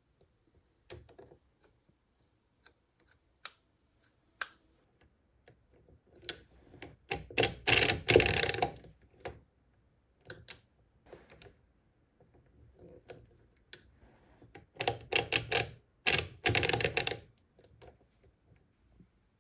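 Odhner pinwheel arithmometer cranked by hand with its cover off: a few single clicks, then two long runs of rapid clicking and clatter as the brass pinwheels turn and step the register wheels, with shorter bursts between.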